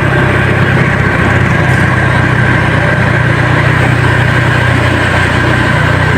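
Vehicle engine running steadily with an even low drone; no horn is sounded.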